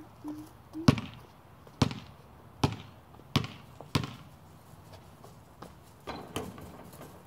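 A basketball dribbled on a concrete court: five sharp bounces, a little under a second apart, then two fainter knocks near the end as the shot goes up at the hoop.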